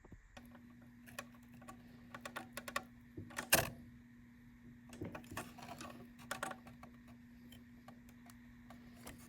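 Scattered light clicks and taps from computer hardware being handled, with one sharper click about three and a half seconds in, over a faint steady hum.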